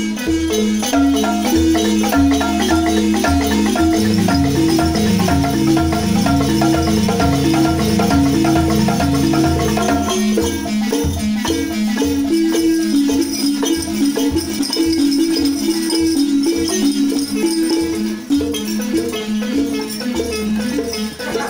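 Several Senufo balafons, wooden xylophones, played together in fast interlocking repeating patterns. The lowest bass notes stop about ten seconds in and come back near the end.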